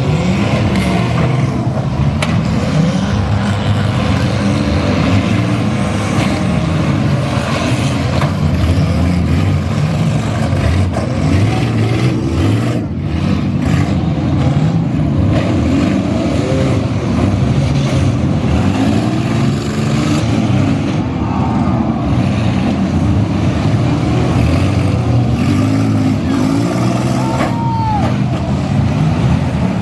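Several demolition-derby minivan engines running hard at once, their pitches overlapping and repeatedly rising and falling as the drivers rev up and back off.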